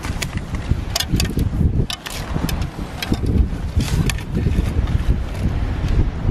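Wind buffeting the microphone, with a scatter of sharp clicks and rustles from handling a live crayfish and a plastic measuring gauge over a mesh catch bag.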